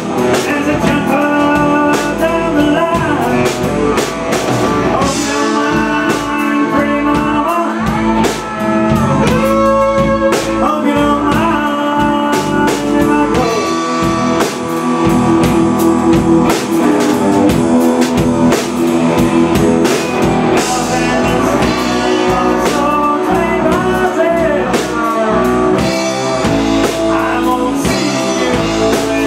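Live blues-rock band playing loud, with electric guitars, bass guitar and drum kit.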